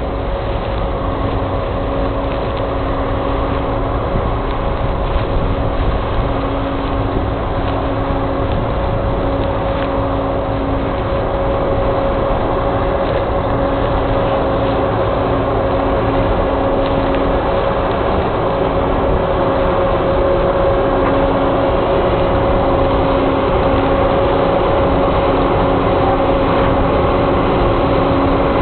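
John Deere combine harvester running while harvesting wheat: a steady mechanical drone with a held hum over a low rumble, slowly growing louder.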